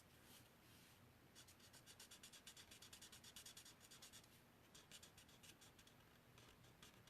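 Faint scratching of a marker tip colouring on cardstock: quick back-and-forth strokes, about nine a second, running for about three seconds, then a few more strokes a little later.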